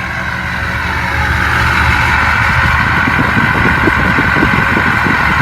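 Ford 6.0 Powerstroke V8 turbodiesel running with a Powermax stage 2 turbo (GT4088R compressor wheel, 10-blade turbine). A steady turbo whistle sits over the engine's rumble, growing a little louder over the first couple of seconds.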